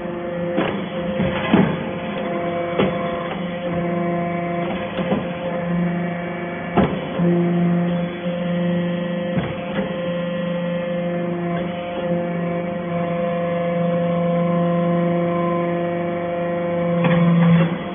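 Hydraulic scrap baler running: a steady motor and pump hum, with several constant tones that swell and fade, and scattered sharp clanks every second or two.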